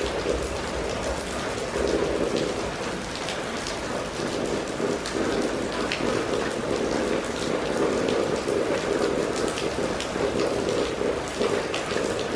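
Steady rain falling on a wet, flooded street, with many scattered sharp drop ticks over an even hiss.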